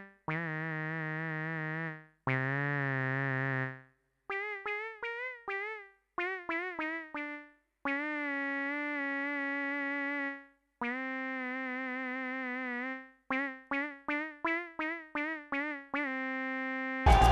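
Background music: a single-line electronic keyboard-style melody played one note at a time, mixing runs of quick short notes with held notes, several of them wobbling, with short pauses between phrases. Right at the end, louder dance music with a beat cuts in.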